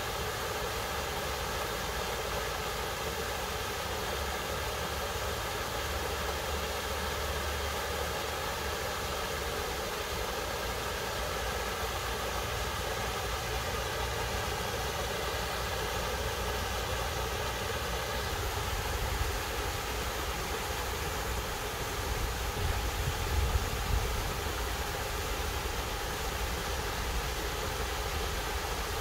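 Small waterfall pouring over a rock ledge into a stream: a steady rushing, splashing water noise, with a few brief low rumbles about three-quarters of the way through.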